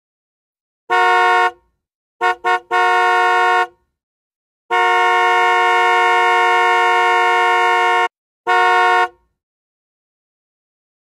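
Car horn honking in blasts: a short honk, two quick taps and a honk of about a second, then one long honk of over three seconds and a last short honk.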